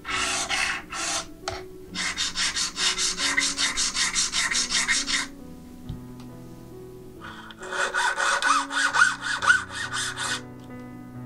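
A flat hand file rasping back and forth on a small brass habaki blank, about four strokes a second, then after a short pause a fine-toothed saw cutting the brass at the same pace, with a thin squeal on some strokes. Soft background music plays underneath.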